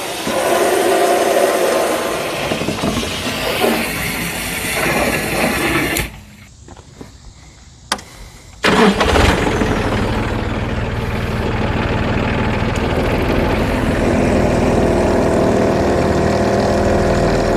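Water from a garden hose running into a plastic sprayer tank, then after a short quiet gap a compact tractor's diesel engine starts abruptly about eight or nine seconds in and runs steadily.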